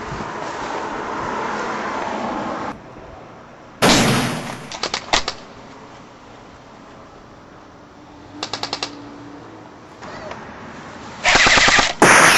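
Airsoft rifle firing short bursts of rapid automatic shots, three volleys, the last and loudest near the end.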